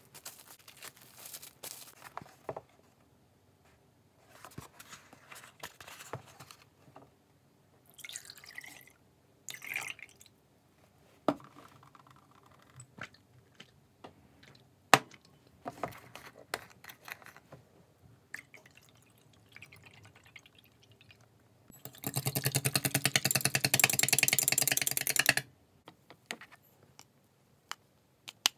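Kitchen handling sounds: plastic cling wrap crinkling near the start, then scattered taps and clicks. About three seconds of liquid, soy milk mixed with vegetable juice, poured from a carton is the loudest sound, a few seconds before the end.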